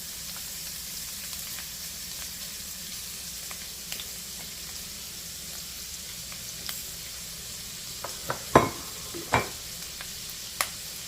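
Raw shrimp sizzling in hot olive oil in a pot, a steady high-pitched hiss. A few sharp knocks come in the last few seconds, the loudest about eight and a half seconds in.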